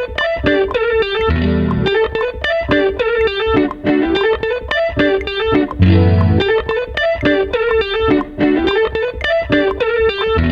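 Instrumental beat led by a repeating plucked guitar-like riff, with a low bass hit about every four and a half seconds.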